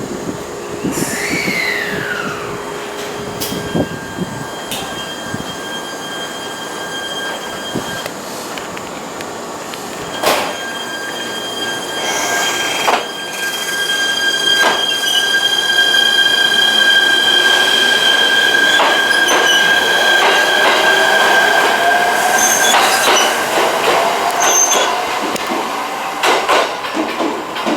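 A train running along the rails with a steady high whine and wheel squeal, scattered clicks, and a tone that slowly rises over the last several seconds as the sound grows louder. Near the start a squealing tone sweeps down in pitch.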